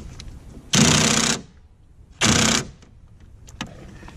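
Cordless power driver running in two short bursts about a second and a half apart, driving down a bolt on the oil catch can's mounting bracket.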